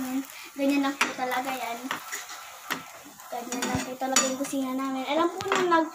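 A spatula scrapes and clicks against a frying pan where pancake batter sizzles, with a child's wordless humming over it.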